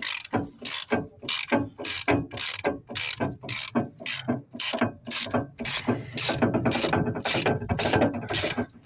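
Hand ratchet wrench worked back and forth on a bolt, a steady run of ratcheting strokes at about two to three a second.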